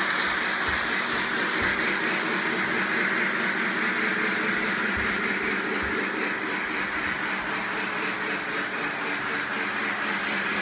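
Polar Express O-gauge model train running on its track: a steady rolling rumble of wheels on rail with a constant motor hum.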